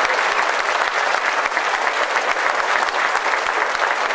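Crowd applauding: many hands clapping in a steady, dense stream without a break.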